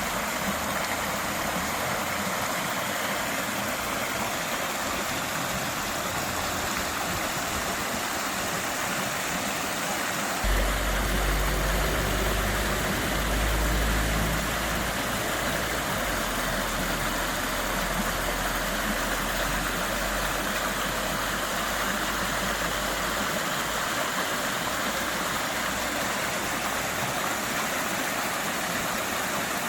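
Flowing water rushing steadily. About a third of the way in, a low rumble joins it and fades out after roughly twelve seconds.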